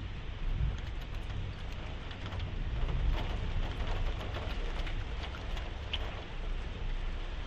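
Rain falling on a window pane: a steady hiss of rain with a low rumble, and many small sharp taps of raindrops striking the glass, thickest in the middle.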